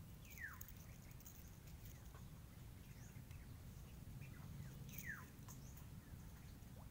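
Faint: two short animal calls that slide down in pitch, one near the start and one about five seconds in, over a low steady rumble.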